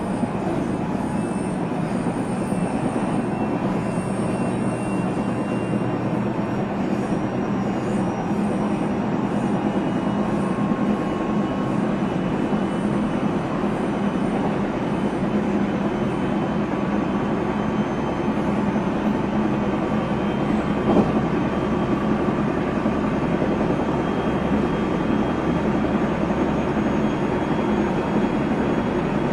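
JR Central 373 series electric multiple unit running between stations, heard from inside the car: a steady rumble of wheels on rail under a faint whine from the Toshiba VVVF inverter and traction motors that creeps slowly up in pitch. One sharp knock about two-thirds of the way through.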